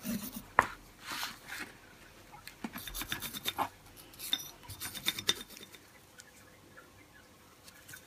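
Scratchy rubbing and light clicks of brake caliper parts being handled and cleaned in a plastic tub, dying down after about five seconds.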